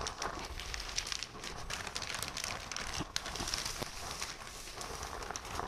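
Plastic wrapping crinkling and rustling as it is pulled off and handled, a dense, irregular crackle of small clicks.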